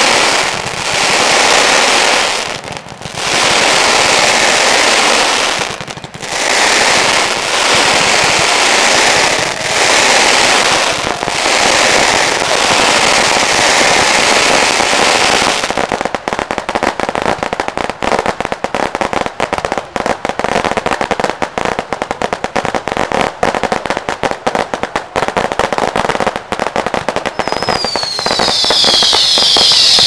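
Firework display: pyrotechnic fountains hissing loudly in long surges with brief gaps for about the first half. Then comes dense, rapid crackling, and near the end several high whistles falling in pitch.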